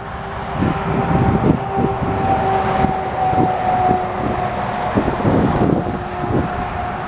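Bicycle riding along an asphalt path: rumbling wind buffets the microphone with irregular bumps, growing louder over the first second as speed picks up. A steady whine runs under it, falling slightly in pitch.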